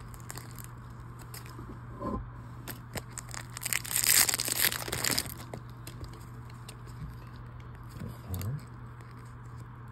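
A plastic trading-card booster pack wrapper torn open, one crinkly rip lasting about a second and a half near the middle. Around it come light clicks and flicks of cards being handled.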